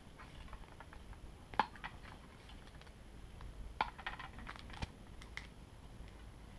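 Scattered light clicks and taps, the sharpest about a second and a half in and again near four and five seconds, from a partly inflated bicycle inner tube being handled against a spoked road wheel.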